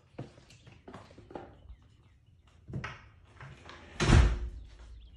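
Deer hooves tapping and scuffing irregularly on a concrete garage floor, with a louder thump about four seconds in.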